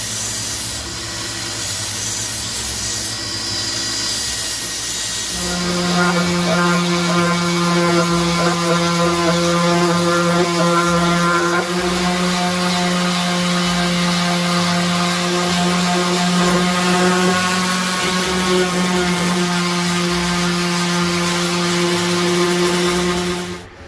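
Small electric sanding tool running on the metal of a wrench: a rough, noisy run for about five seconds, then a steady pitched motor hum with overtones that cuts off suddenly near the end.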